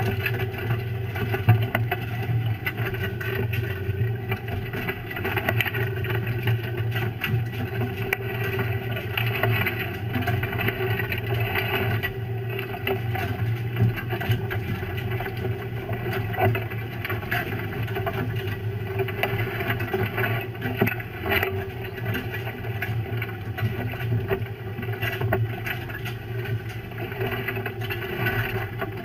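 Fishing boat's engine running steadily, with a continual irregular clatter of snow crab shells knocking together as they are sorted by hand.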